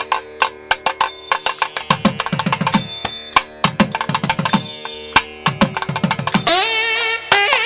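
Indian-style music: hand drums playing quick strokes, some low strokes sliding in pitch, over a steady drone. A wavering melodic line comes in near the end.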